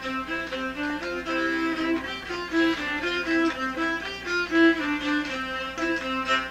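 Background music: a fiddle playing a melody of short, changing notes.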